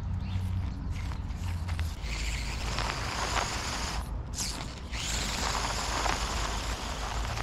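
Electric motor and gears of a radio-controlled rock crawler whirring as it crawls up over dirt and rocks, turning to a rougher, hissier sound about two seconds in.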